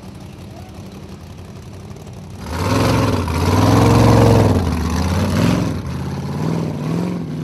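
Formula Offroad buggy's engine running steadily, then revved hard about two and a half seconds in as the car pulls away, the revs rising and falling several times before easing back to a lower, wavering note.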